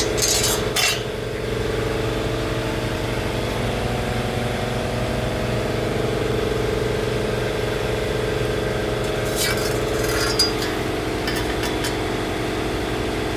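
A machine running with a steady hum, and the plasma-cut steel part clinking and scraping as it is handled, briefly near the start and a few times around ten seconds in.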